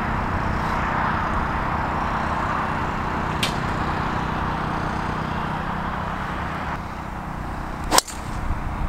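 Golf driver striking a ball off the tee: one sharp crack about eight seconds in, over steady outdoor background noise.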